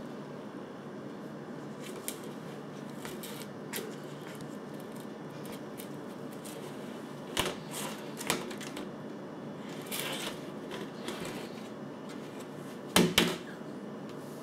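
Plastic laundry basket rattling and scraping on a tile floor as cats paw at it through its slats: scattered light clicks and scrapes, with the loudest double knock near the end, over a steady low hum.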